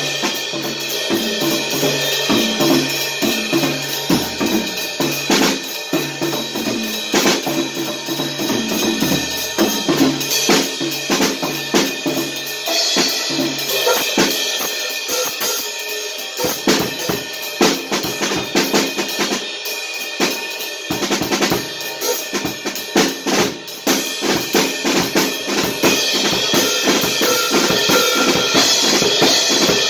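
Acoustic drum kit played in a busy, continuous groove: bass drum, snare and cymbals struck in quick succession. The cymbal wash grows heavier around the middle and again near the end.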